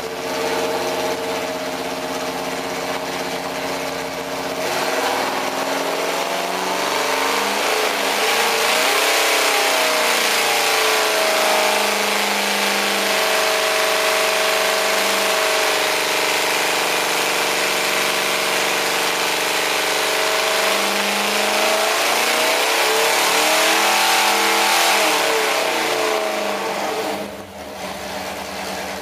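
Stroked 461-cubic-inch Pontiac 400 V8 with a hydraulic roller cam and stock Quadrajet carburettor running on an engine dyno. It runs steadily at first, then rises in speed and loudness about five seconds in, holds hard under load for about twenty seconds, and drops back abruptly near the end. The builder says this engine runs out of fuel right at 5,000 rpm on the pull.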